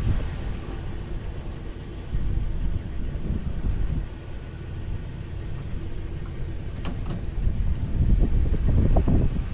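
Low wind rumble on the microphone. A wooden ramp of plywood and 2x4s slides into the truck bed under the sled-bed in the first few seconds. A few sharp wooden knocks come near the end.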